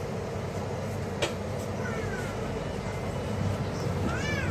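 Car ferry's engine running with a steady low rumble. A click comes about a second in, and two short high calls sound over it: a falling one about two seconds in and a rising-then-falling one near the end.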